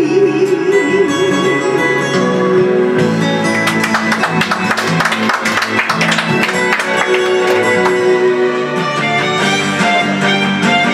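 Recorded backing music plays an instrumental passage after a song's last sung line. In the first second or so, a woman's voice holds a final note with vibrato.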